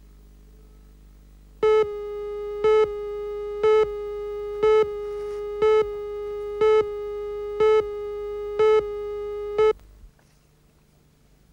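Videotape countdown leader tone: a steady pitched tone with a louder short beep once a second, nine beeps in all, counting down to the programme, cutting off just before ten seconds in.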